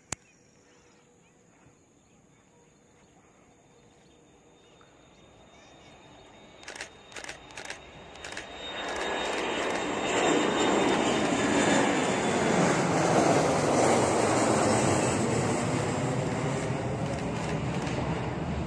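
Boeing 737-500's CFM56-3 turbofan engines at takeoff power as the jet climbs out: the noise builds from faint over several seconds, is loudest a little past the middle, then fades slowly as it departs.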